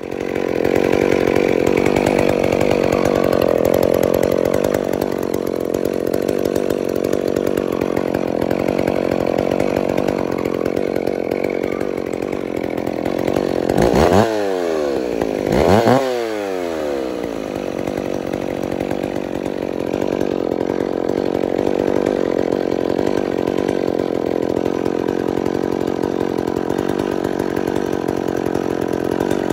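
McCulloch Pro Mac 610 two-stroke chainsaw engine running steadily, revved up briefly twice about halfway through and dropping back each time.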